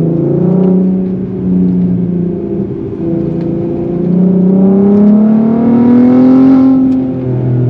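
Volkswagen Golf R32's VR6 engine through its new 3-inch exhaust with a replacement muffler, heard from inside the cabin while driving. The engine note climbs steadily under acceleration through the middle and drops back near the end, a note the driver calls solid.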